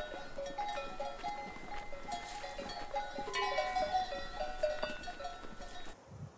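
Bells on a herd of domestic goats clanking as the goats move: a jumble of short ringing notes at a few fixed pitches with light strikes, stopping abruptly near the end.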